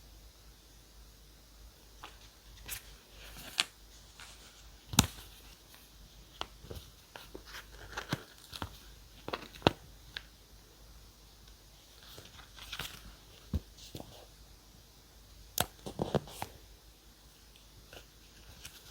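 Paper and stationery handled on a desk: paper crinkling and tearing, with scattered sharp taps and clicks. The loudest clicks come about five and ten seconds in.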